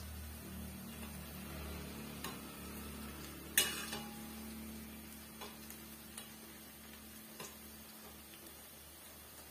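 Urad dal vadai deep-frying in oil in a steel kadai with a steady faint fizz. A metal utensil turning them clinks against the pan a few times, loudest about three and a half seconds in.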